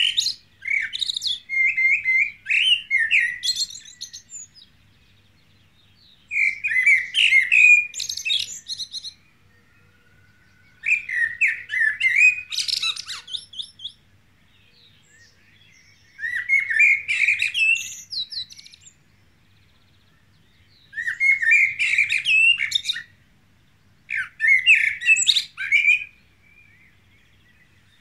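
Male common blackbird singing: about seven flute-like warbled phrases, each two to three seconds long with high squeaky twittering notes mixed in, separated by pauses of about two seconds.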